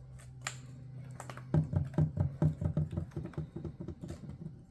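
Rapid light clicks and taps of objects being handled, about four or five a second, starting about one and a half seconds in, over a steady low hum.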